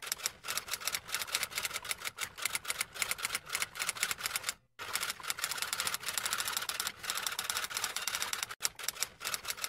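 Typewriter sound effect: rapid key clacks following one another, with a brief silent break about halfway through.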